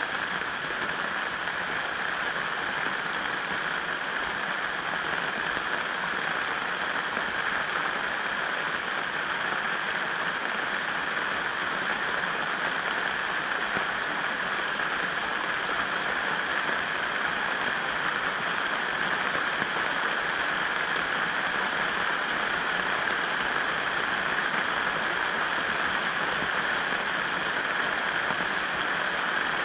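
Steady, even rush of water: rain falling while the swollen river runs.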